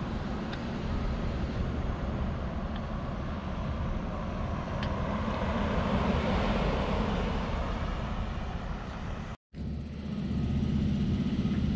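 A Chevrolet Silverado pickup drives past, its engine and tyre noise swelling to a peak about six seconds in and then easing off. After a sudden break, a steady low engine hum follows.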